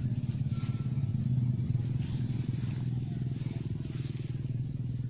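A small engine running steadily at one speed, with a low, even hum and a rapid pulsing beat.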